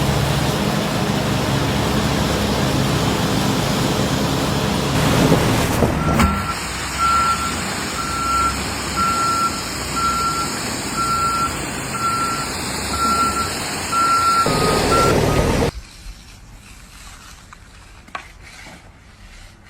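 A heavy vehicle's engine running, then its reversing alarm beeping on one steady pitch about once every 0.7 seconds for some nine seconds. The sound then cuts off suddenly.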